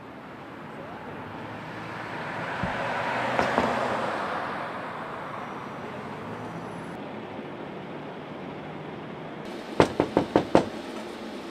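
Street traffic, with a car passing that swells and fades about three to four seconds in. Near the end, about five quick knuckle knocks on a door.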